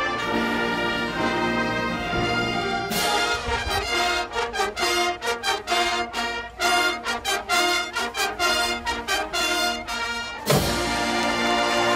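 High school marching band's brass and percussion playing: held chords, then a sharp accent about three seconds in, followed by a run of short, punchy chords. Near the end a loud full-band hit opens into a sustained chord.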